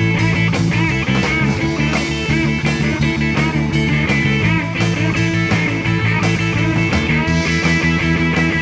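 Live rock band playing loud: electric guitar with bending, wavering notes over bass guitar and a steady drum beat.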